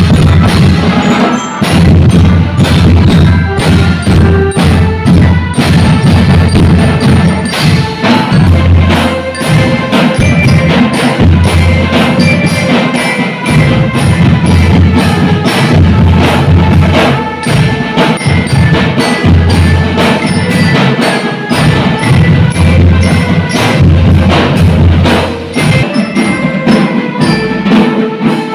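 Drum band playing: Pearl marching bass drums thump out a steady beat under snare and tenor drum strokes and crashes of hand cymbals, while metal-bar glockenspiels played with mallets ring out a melody.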